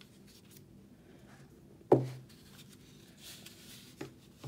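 Soft handling of a cardboard box and an Apple HomePod speaker as it is lifted out, with one sharp knock about two seconds in and a fainter click near the end.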